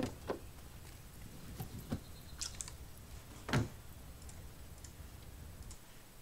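Scattered computer clicks and keyboard taps, faint and irregular, with one louder knock about three and a half seconds in.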